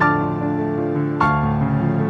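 Slow, gentle keyboard music: a chord is struck at the start and another a little over a second in, each left to ring.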